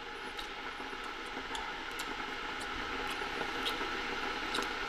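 Steady background hiss with a few faint, scattered clicks.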